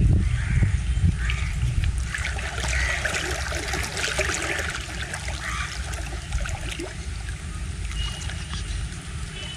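Fast river water rushing and rippling, with many small splashes and trickles, and a low wind rumble on the microphone that is strongest at the start and eases off.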